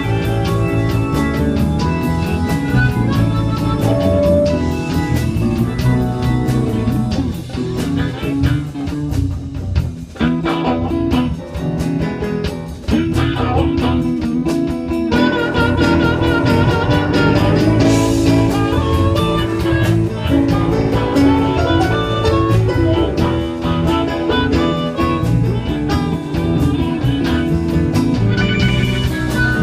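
Live band playing a slow blues in E, led by guitar over drums. The band drops quieter about a quarter of the way in, then comes back up near the middle.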